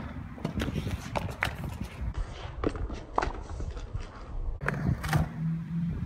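BMX bike on concrete skatepark ramps: a run of scattered clicks and knocks from the tyres and frame. A low steady hum joins about four and a half seconds in.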